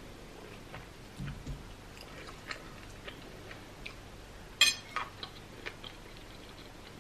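Close-up chewing and mouth clicks of a person eating seafood okra soup, with a few low thumps about a second in and one sharp, loud click about two-thirds of the way through.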